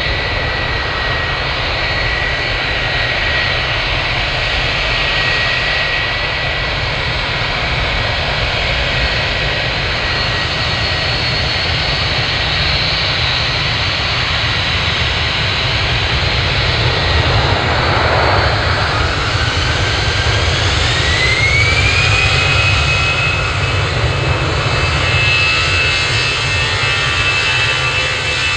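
Jet airliner engines running with a steady roar and whine. About two-thirds of the way through the whine rises in pitch and then holds at the higher pitch, as the engines spool up to higher thrust.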